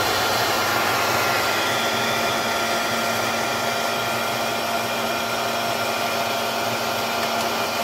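Handheld hair dryer blowing steadily, used to melt the ice in a refrigerator's freezer compartment, with a faint steady whine over the rush of air.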